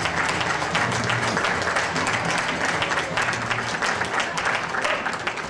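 Audience applause: dense clapping from many hands, easing off slightly near the end.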